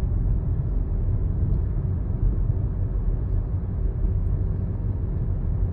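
A moving car's road and engine noise heard from inside the cabin: a steady low rumble.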